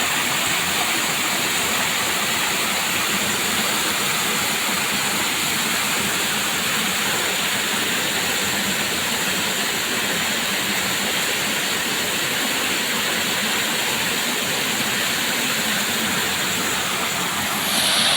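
Waterfall: water falling and rushing in a dense, steady roar. The sound changes character just before the end.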